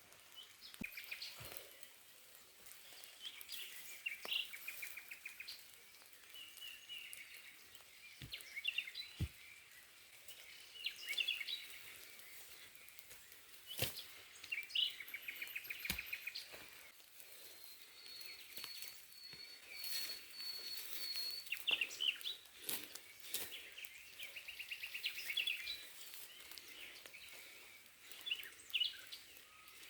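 Several forest birds chirping and trilling in overlapping calls, one holding a steady high whistle for a few seconds past the middle. Scattered sharp taps of falling raindrops come through between the calls.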